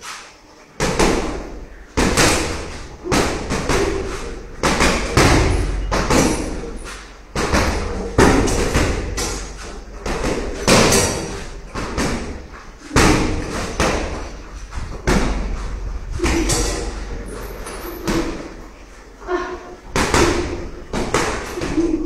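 Gloved punches and bare-foot kicks thudding into a hanging heavy punching bag, an irregular run of blows about one or two a second, each with a short room echo.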